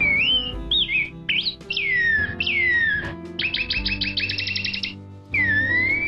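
Black-backed grosbeak (rei-do-bosque) singing: loud whistled phrases, several gliding downward, then a fast trill of repeated notes about halfway through, and a rising whistle near the end. Steady background music plays underneath.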